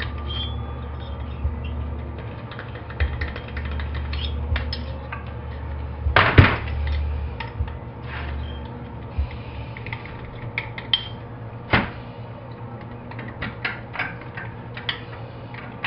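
Metal clicks and clinks of hand tools and Stihl S-10 chainsaw engine parts being handled on a metal tray during disassembly. There is a louder knock about six seconds in and another near twelve seconds, over a low background hum.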